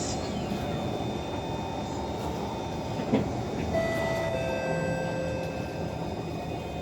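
Kawasaki C151 metro train running, heard from inside the carriage: a steady rolling rumble, with a short knock about three seconds in and thin whining tones from the drive setting in just after, as the train nears the next station.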